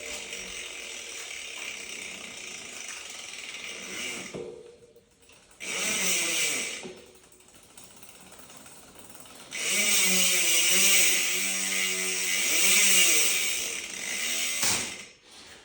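DT Swiss rear hub freewheeling with its new 54-tooth star ratchet, giving a fast, high-pitched ratchet buzz. It comes in three spells, and the last spell, from about ten seconds in, is the loudest.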